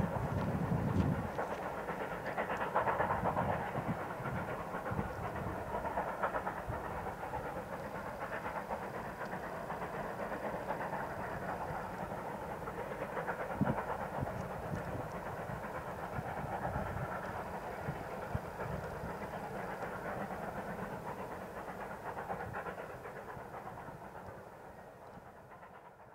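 Narrow-gauge steam freight train working up a 4 percent grade. The mid-train helper locomotive's exhaust beats come in the first second or so, then the freight cars roll past with a steady rumble and clatter of wheels on rail, fading out near the end.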